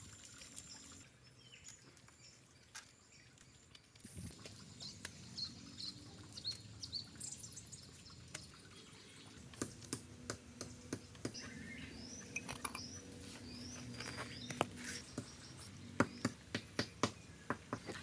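Wooden piston bellows pumped by hand, knocking sharply and fairly regularly from about halfway, most often near the end, over a low steady rumble. Birds chirp in short rising calls.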